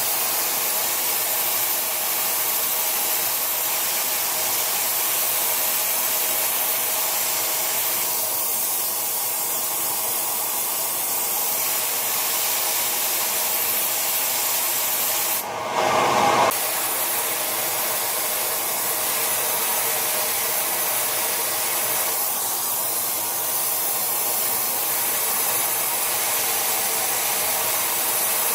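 Thermal metal-spray gun hissing steadily as it coats a worn screw-compressor shaft to rebuild its bearing seat, with a short change in the sound about halfway through.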